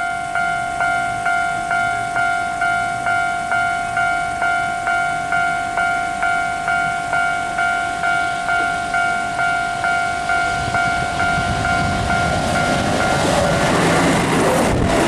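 Level-crossing warning bell ringing steadily at about two and a half strokes a second. From about twelve seconds in, a Keihan 8000-series electric train running through without stopping swells up close by and drowns the bell in the steady rush of its wheels on the rails.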